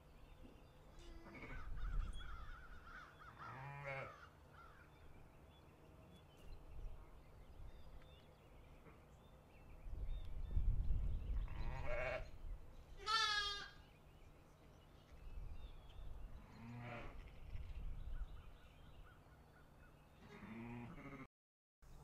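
Ewes and newborn lambs bleating: about six separate bleats, one high and quavering about halfway through. A low rumble comes and goes between them.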